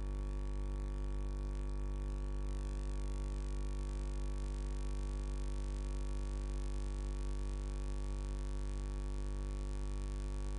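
Steady electrical hum with a buzz of even overtones above a strong low drone, unchanging throughout, typical of mains hum on the open commentary audio line.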